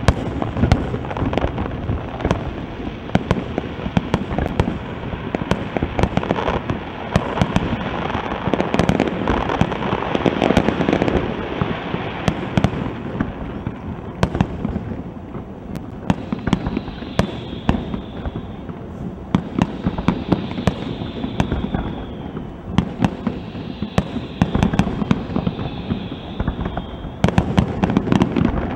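Aerial fireworks display: a rapid, continuous barrage of bangs and crackling bursts, easing somewhat in the middle and building again near the end.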